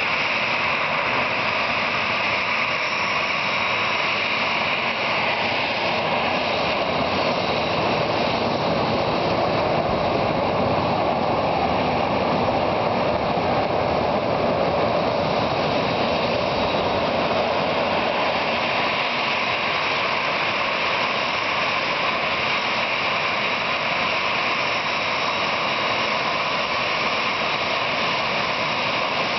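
Boeing 737-500's twin CFM56 turbofan engines running at low taxi power as the jet taxis on the apron. A steady jet engine rush and whine that swells slightly in the middle.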